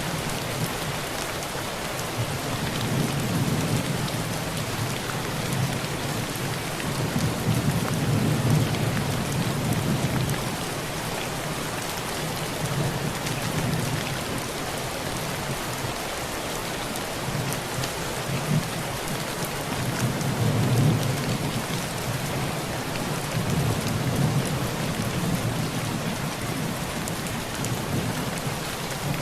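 Heavy rain drumming steadily on a tin roof, with many fine drop ticks. Low rolling thunder swells and fades several times underneath.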